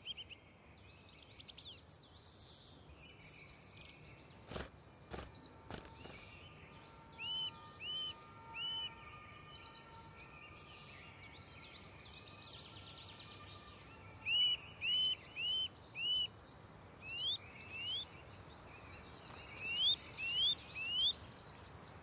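Eurasian nuthatch calling: short series of clear, arching whistled notes, three together, then five, then a few rising whistles near the end. Higher chirps from other small birds come in the first few seconds.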